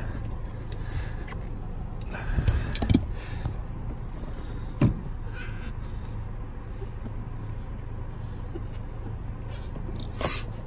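Rubber pad being worked off a Nissan 240SX's brake pedal by hand: a spell of rubbing, scraping noise about two seconds in, and a sharp knock about five seconds in and another near the end, over a steady low hum.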